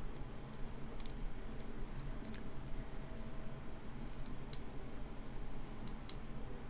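A lock pick working the pins of a Schlage-type pin-tumbler cylinder under tension, giving faint scattered metallic clicks, about six over several seconds, over a low steady hum.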